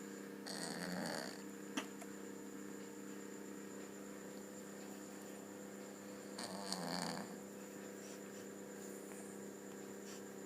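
Sleeping cat snoring: two snores about six seconds apart, each under a second long, over a steady electrical hum. A single sharp click comes just after the first snore.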